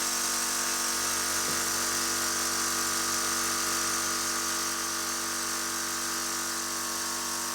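Portable high-pressure HPA compressor running steadily, an even mechanical hum with a hiss over it. It is running against a dead-ended hose that, to the owner's puzzlement, is not building pressure as expected.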